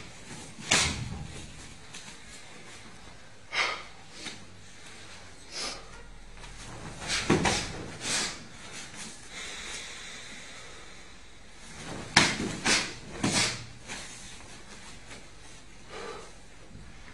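Irregular short thuds and slaps from two jiu-jitsu practitioners working techniques on a mat: gi cloth snapping, feet and bodies striking, with clusters of several hits about halfway and past two-thirds of the way through.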